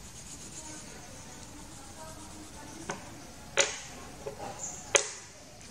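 Crayon rubbing faintly on paper as a picture is coloured in, with three sharp clicks about three, three and a half and five seconds in as crayons are set down or picked up on the table.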